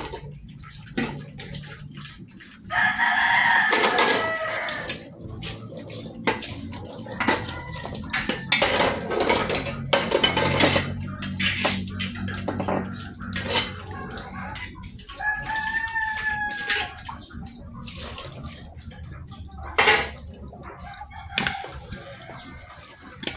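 A rooster crows loudly about three seconds in and again more faintly about fifteen seconds in, over running tap water splashing and the clatter of pots and lids being washed at a sink.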